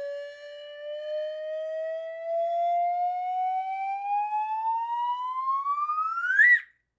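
Cartoon-style rising whistle sound effect: one wavering tone slides slowly upward, climbs faster toward the end, flicks up at the top and then cuts off suddenly.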